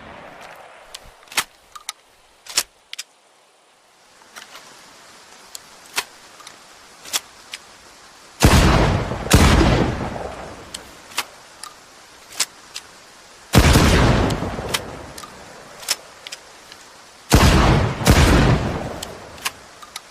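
Shotgun sound effect: three pairs of loud shotgun-like blasts, each with a long fading echo, the first pair about eight seconds in and the last near the end, with light sharp clicks and knocks between them.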